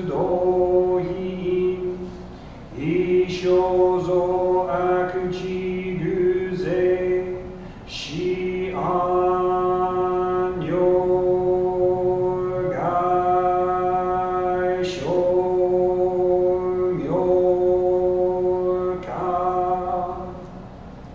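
A single man's voice chanting a Japanese Buddhist text on one steady held pitch, phrase after phrase with short breaths between; the chanting stops about a second before the end.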